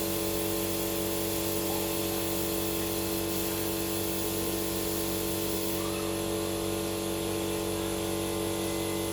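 Steady mechanical hum with several fixed tones over a constant hiss.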